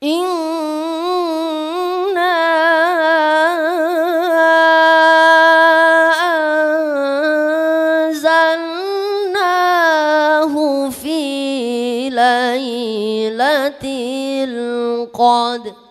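A boy reciting the Quran solo in the melodic tilawah style: one long chanted phrase with wavering, ornamented notes and long held tones, climbing higher near the end before it stops.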